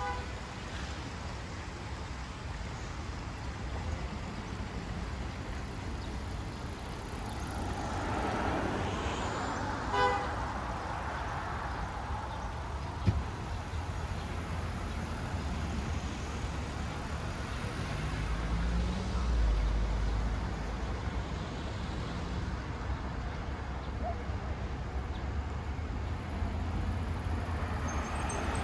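Street traffic: a steady low rumble with vehicles passing, and a single short horn toot about ten seconds in. A sharp click follows a few seconds later.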